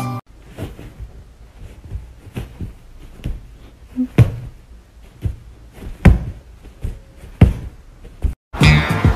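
Irregular knocks and thumps, a dozen or more over several seconds, a few of them sharp and loud. Music cuts out just after the start and comes back near the end.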